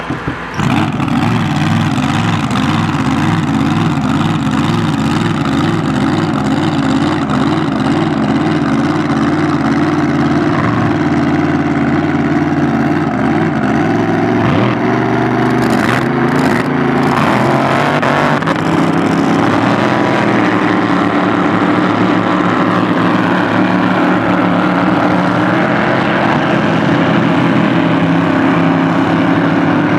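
Grand Prix hydroplane racing engines: one catches with a brief sputter about half a second in, then runs loud at an uneven, wavering idle with throttle blips. Later in the clip the engines pick up as the boats get underway.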